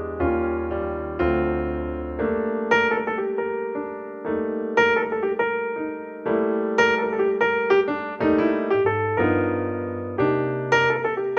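Background piano music: chords and melody notes struck and left to ring, with a bass line changing every second or two.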